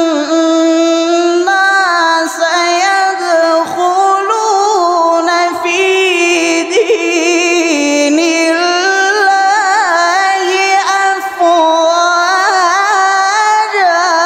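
A male Quran reciter holding a high-register (jawab) melismatic phrase in one voice, the pitch wavering through ornamented turns. The line stops near the end and dies away in an echo.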